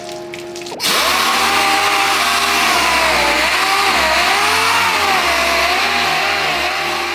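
Pneumatic dual-action sander switching on about a second in and running, with a loud air hiss and a whine that wavers in pitch as the pad is pressed against and moved over a car's body panel, scuffing it with 600-grit ahead of paint.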